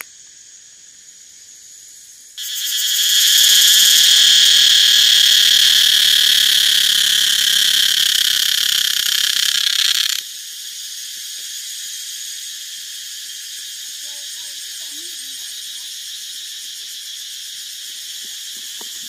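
A loud, steady, high-pitched insect buzz starts suddenly about two seconds in and cuts off sharply about eight seconds later. A fainter continuous insect chorus carries on underneath throughout.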